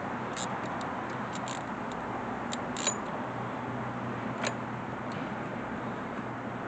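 Light, irregular clicks and taps of hand tools on metal, a ratchet among them, over a steady hiss and faint low hum of the surroundings.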